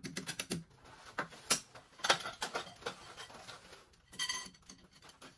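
Metal clicks and clinks of a hand tool working against threaded steel hanger rods, a series of separate sharp taps with the strongest about one and a half and two seconds in, and a short ringing metallic clink about four seconds in.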